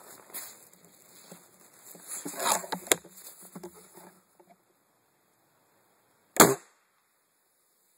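Rustling and knocks as a scoped rifle is handled and brought to aim, loudest about two and a half seconds in, then a single sharp rifle shot a little over six seconds in.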